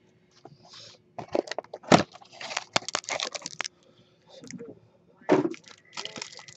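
Plastic trading-card pack wrapper being torn open and crinkled, with irregular crackling in two spells, one from about a second in and one again near the end.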